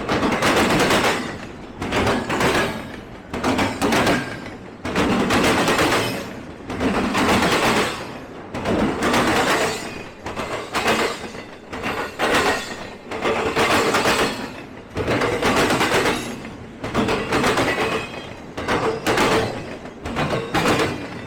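Freight train rolling past close by, its wheels clattering in a loud, uneven rhythm of about one heavy clank a second as the cars go by.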